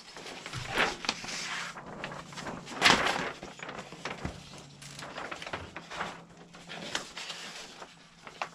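Large paper plan sheets rustling and crackling as they are unfolded and handled, in irregular rustles, loudest about three seconds in.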